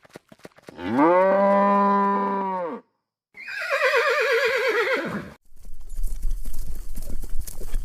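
A cow moos once, a long call held at a steady low pitch. About three seconds in, a horse whinnies, its pitch wavering and falling. From about the middle, a rapid run of hoof clip-clops over a low rumble.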